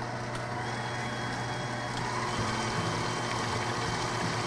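KitchenAid Professional 6000 HD stand mixer running at low speed, its motor humming steadily as the beater mixes cake flour into batter; the hum grows a little louder about halfway through.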